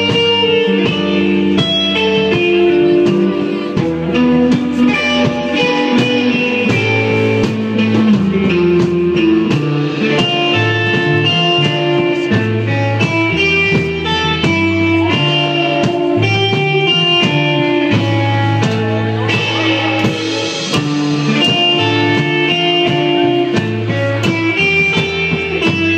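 Live band playing an instrumental number, electric guitar leading over a moving bass line.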